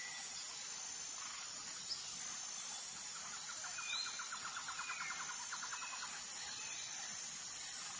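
Forest ambience: birds chirping, with a rapid run of quick repeated notes from about three seconds in that lasts a few seconds, over a steady high-pitched insect buzz.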